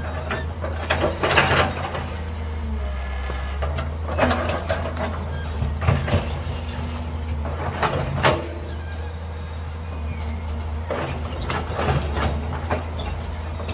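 JCB tracked excavator's diesel engine running steadily while the boom and bucket work, with several short louder bursts of noise and knocks from the machine as the arm moves.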